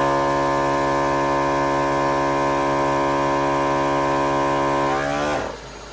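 Napa Maxi Trac 12-volt portable air compressor running with a steady hum while inflating all four tires at once through a manifold, then shutting off about five seconds in, its motor winding down in pitch.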